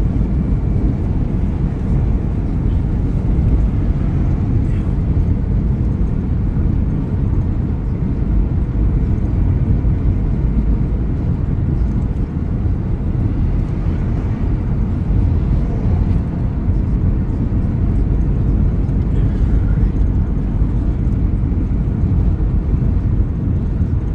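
Steady low rumble of a car driving at road speed, tyre and engine noise heard from inside the cabin.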